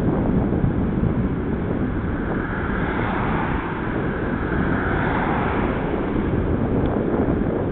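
Wind buffeting the microphone of a camera on a moving bicycle: a steady low rumbling noise, with a hiss that swells and fades around the middle.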